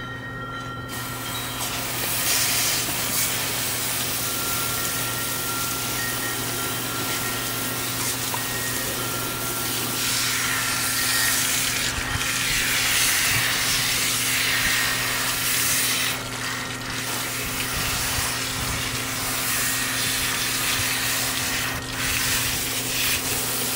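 Water hissing steadily from a garden hose spray nozzle as it sprays a small dog and splashes onto a wooden deck. The spray starts about a second in.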